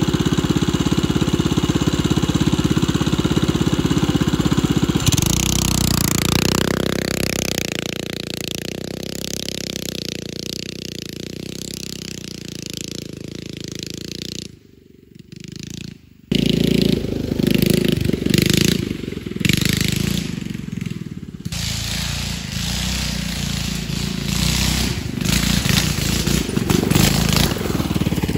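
A go-kart's small single-cylinder engine running steadily close by, then revving up as the kart pulls away and fading with distance. After a short drop-out about halfway through, it comes back louder and uneven, revving up and down as the kart is driven over rough ground.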